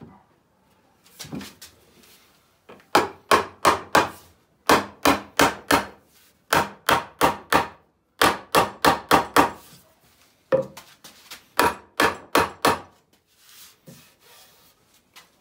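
Mallet knocking a wooden chair leg home into a Sam Maloof-style leg-to-seat joint: sharp wooden knocks in quick runs of four to six blows, about three a second, with short pauses between runs. The last few knocks near the end are lighter.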